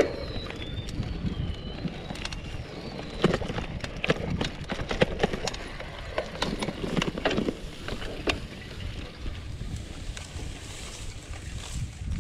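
Gravel bike rolling over a rough, grassy dirt track: a steady rumble of the tyres with frequent irregular clicks and rattles as the bike jolts over bumps.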